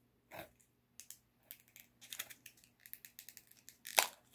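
Small plastic makeup packaging being handled and opened: scattered light clicks and rustles, with one sharp snap about four seconds in.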